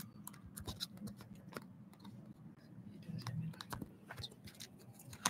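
Faint, irregular computer keyboard and mouse clicks, several a second, over a low steady hum.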